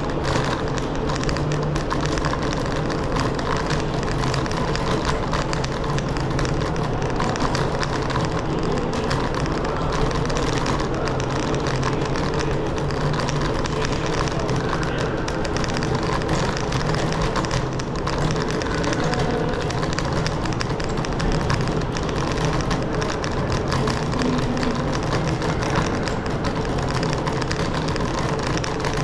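Steady riding noise from a scooter on the move: continuous rumble and rushing noise with a constant low hum, unchanging throughout.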